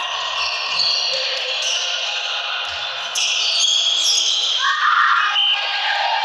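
Sounds of an indoor volleyball game in a sports hall: ball impacts and players' voices.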